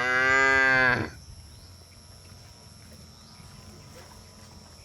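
A cow moos once at the start: a loud call lasting about a second, rising a little in pitch and then falling.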